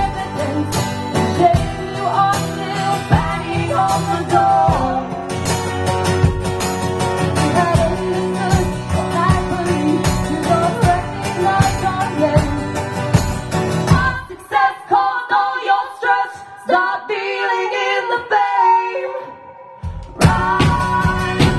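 Live band music with singing. About two-thirds of the way through, the drums and bass drop out, leaving thinner guitar and voice, and the full band crashes back in near the end.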